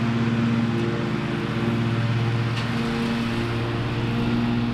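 Toro TimeCutter zero-turn mower's engine running steadily at one speed, blades engaged while mowing.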